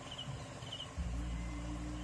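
Crickets chirping in short, repeated trills. A steady low rumble comes in about a second in.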